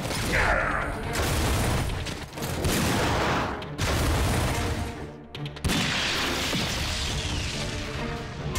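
Animated battle sound effects: rumbling booms and blasts over action music, with a sudden loud blast a little over halfway through.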